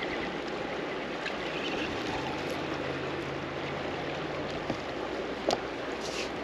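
Steady rush of river water flowing over shallow riffles, with a short sharp click about five and a half seconds in.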